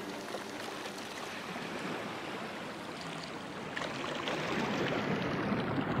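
Steady rushing of water, like a stream or surf, that swells louder over the last couple of seconds and starts to turn muffled near the end.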